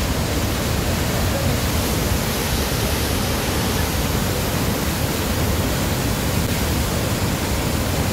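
Devi's Fall waterfall rushing with a steady, unbroken noise of falling water.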